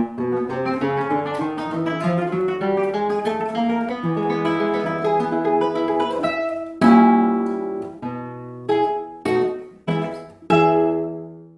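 Acoustic guitar music: a quick run of plucked notes climbing in pitch, then a few strummed chords about a second apart that ring out and fade away near the end.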